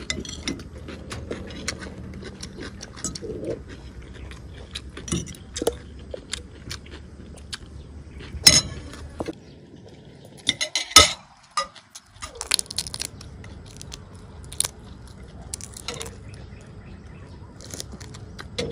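Spoons and forks clinking and scraping on ceramic plates during a meal, with some chewing; a few sharper clinks stand out around the middle.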